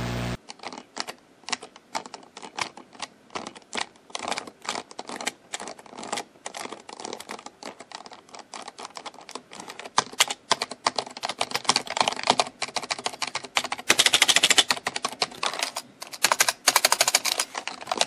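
Typing on a membrane computer keyboard: uneven key presses, scattered at first, then quicker runs of rapid typing from about ten seconds in. A brief hiss of static at the very start.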